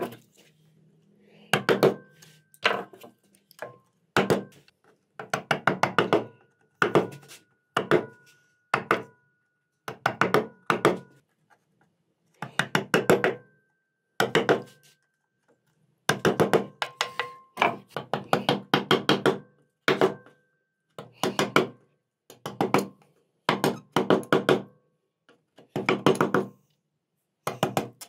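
Steel carving gouge being driven into walnut wood in short runs of rapid light knocks, about one run a second, with brief pauses between.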